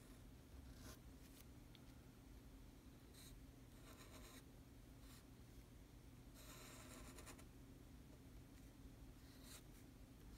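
Fountain pen nib scratching faintly across paper, stroke by stroke, as large characters are written by hand. The strokes come in separate short scrapes, with the longest, about a second, a little past the middle.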